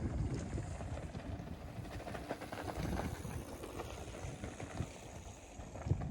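Wind buffeting the microphone outdoors, a low uneven rumble, with a short thump near the end.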